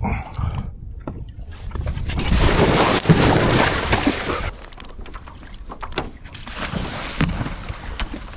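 Wind buffeting the microphone over water moving around a small sailing catamaran. A louder rush of about two and a half seconds comes near the middle, with a few light knocks scattered through.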